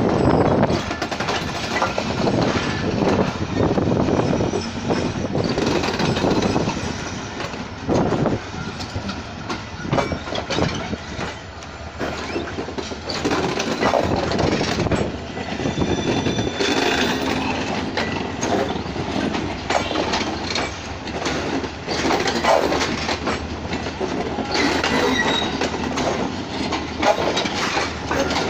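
Pakistan Railways passenger train pulling out of a station, its carriages rolling along the rails with a steady clatter of wheels over rail joints, irregular knocks, and a few faint high squeals.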